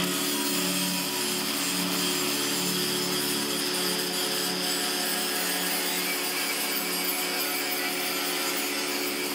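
Angle grinder cutting a steel plate blank: a steady motor whine over a continuous grinding hiss as the wheel bites into the metal.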